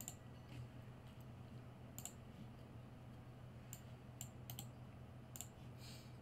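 Faint, scattered clicks of a computer mouse and keyboard, about eight over the few seconds, over a low steady hum.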